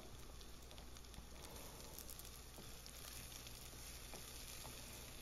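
Faint sizzling of pumpkin cubes and onions frying in oil in a stainless steel saucepan. A few light scrapes of a wooden spoon stirring come in the later part.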